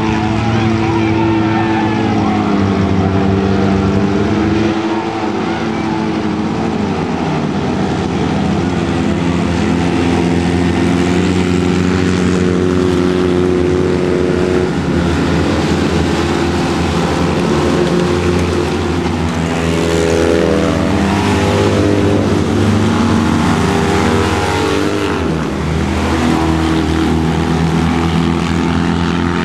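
Engines of Citroën 2CV-class autocross cars, air-cooled flat-twins, racing. The pitch rises and falls continuously as they accelerate, shift and lift off through the course, with more than one engine note heard at once.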